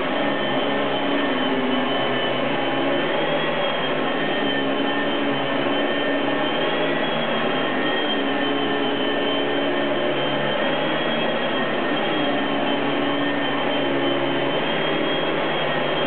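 Upright vacuum cleaner running steadily, its motor giving a high whine that wavers slightly in pitch.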